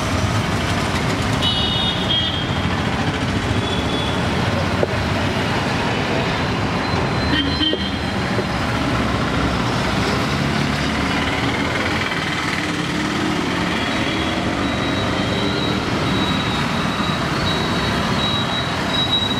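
Steady roar of busy street traffic, with vehicle horns tooting now and then: a short burst of toots about a second and a half in and a longer horn tone near the end.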